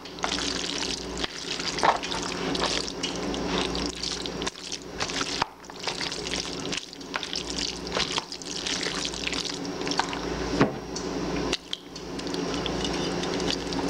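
A spoon stirring and folding sauce-coated elbow macaroni and ground beef in a large bowl: wet squishing with irregular scrapes and knocks against the bowl, over a steady low hum.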